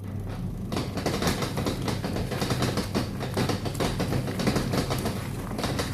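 Washing machine motor switching on and running with a steady hum and a dense, fast rattling clatter.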